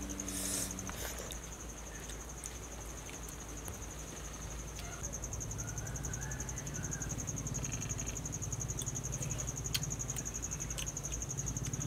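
Insects trilling steadily at a high pitch, growing stronger about five seconds in, with a few faint clicks near the end.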